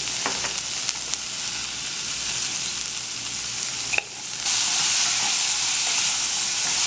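Bodi (long beans) sizzling as they fry in oil in a pot, stirred with a wooden spoon. The steady sizzle dips briefly with a click about four seconds in, then comes back louder.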